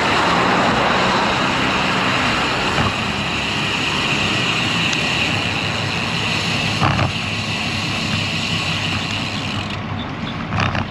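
Road traffic passing, heard from a moving bicycle as a steady rushing noise, with one short knock about seven seconds in.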